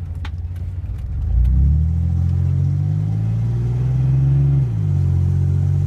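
Chevy S10 Blazer's 4.3-litre V6, heard from inside the cab, revving up about a second in, holding, then dropping back near the end. The owner suspects the engine has a bad exhaust leak.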